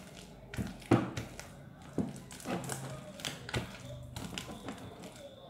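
Sticky clear-glue slime being kneaded and worked by hand, giving a string of irregular taps and sticky clicks, the sharpest about a second in.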